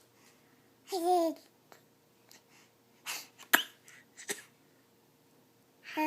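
A baby babbling and trying out noises: a short pitched squeal about a second in, then breathy, noisy sounds with a couple of sharp clicks a couple of seconds later, and another pitched sound starting near the end.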